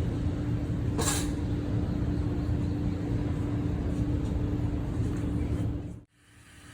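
Car engine idling with a steady low rumble and a constant hum; a brief hiss about a second in, and the sound cuts off abruptly near the end.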